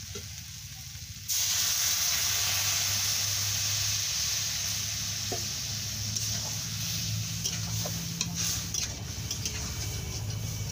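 Water poured into a hot steel kadai of frying vegetables and fish: a loud sizzling hiss starts suddenly about a second in and slowly eases. Near the end a metal spatula scrapes and clinks against the pan as the curry is stirred.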